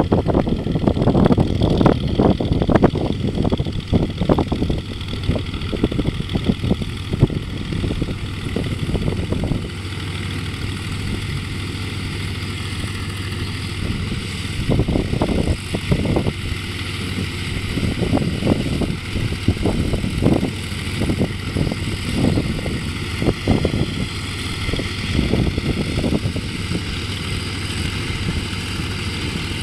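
Distant corn-harvesting machinery, a tractor-drawn harvester with a tractor running alongside, with engines running steadily. Wind buffets the microphone in irregular low rumbles.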